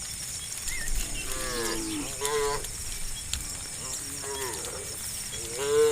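Cattle in a herd mooing: several short, pitched calls a second or two apart, the last one the loudest near the end.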